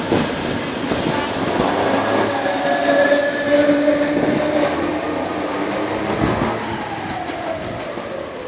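Electric commuter train running past along the platform: a steady whine with wheels clicking over the rail joints. Near the end the whine falls in pitch and the sound fades as the train moves away.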